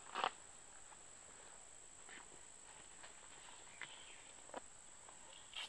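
Faint outdoor background with a steady high-pitched whine and a few brief rustles or steps, the loudest just after the start and the rest faint.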